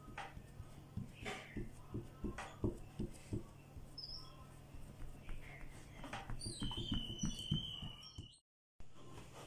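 Hands patting and pressing a sheet of dough on a wooden board: a run of soft, irregular taps and thumps.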